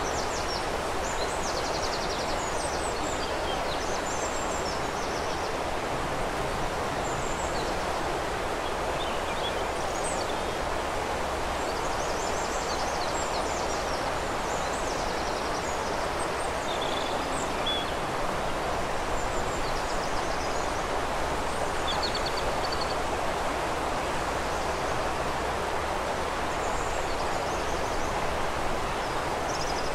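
Steady rush of flowing river water, with small songbirds chirping and giving short high trills on and off over it.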